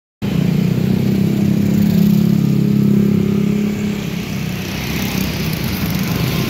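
Road traffic, with motor vehicle engines running close by: a steady engine hum, strongest for the first few seconds and easing about four seconds in.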